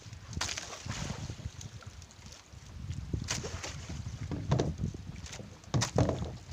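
Water sloshing and slapping against a small fishing boat's hull, with a few sharper splashes and wind buffeting the microphone.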